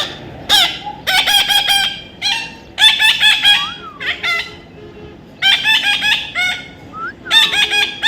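Parrot calling in rapid strings of short, harsh, high squawks, in bouts with a brief lull about halfway through.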